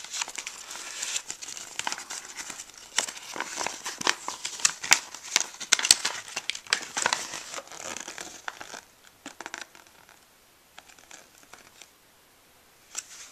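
Glossy paper instruction leaflet being unfolded by hand, crinkling and crackling in quick irregular bursts, going quiet about nine seconds in.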